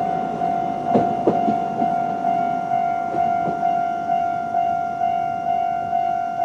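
Japanese level-crossing electronic warning bell ringing at its normal sound, a steady clang repeating about twice a second. A couple of sharp knocks from the passing tram's wheels on the rails come about a second in.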